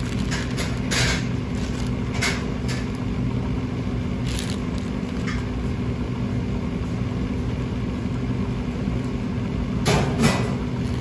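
Steady low mechanical hum of kitchen equipment, with a few short rustles of plastic wrap as the tuna block is handled and sliced: about a second in, twice more in the next few seconds, and again near the end.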